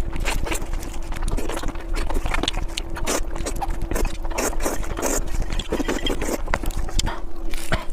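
Food being chewed and crunched quickly: a dense, irregular run of short crunchy clicks, over a faint steady hum.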